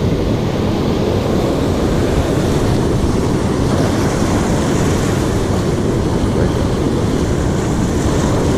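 Wind buffeting the microphone over breaking surf: a steady, loud rushing noise, heaviest in the low end.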